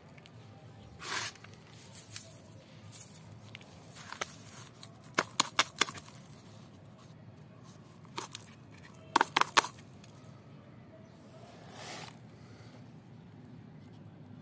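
Handling noise of potting soil being added and pressed around a fern's roots in a plastic pot: scrapes and rustles, with quick runs of sharp clicks about five seconds in and again about nine seconds in.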